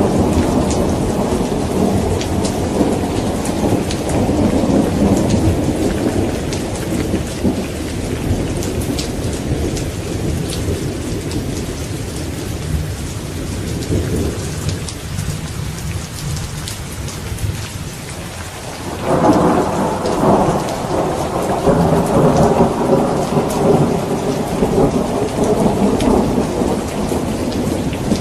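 Thunderstorm: steady heavy rain with long rolling thunder. One rumble fades out over the first half, and a fresh peal of thunder breaks in suddenly about two-thirds of the way through and rolls on to the end.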